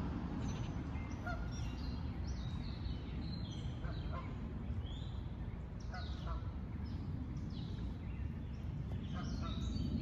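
Many unseen small birds calling and singing in the trees: short chirps and whistled, down-slurred notes scattered throughout, over a steady low rush.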